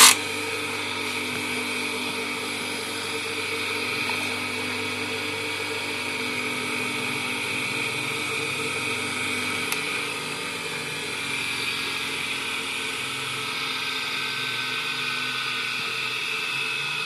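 Electric bench sanding wheel running free with nothing held against it: a steady motor hum with several held tones.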